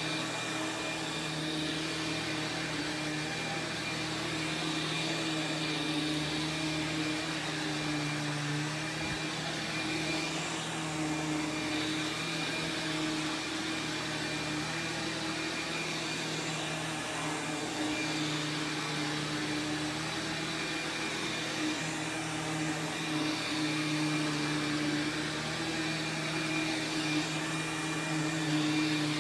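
Sharp Twin Energy EC-12TWT4 upright vacuum running steadily, its 12-amp two-stage motor giving a rush of air with a low hum and a thin high whine. The hum wavers slightly in pitch.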